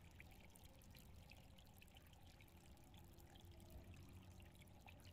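Near silence, with faint steady trickling water in the background.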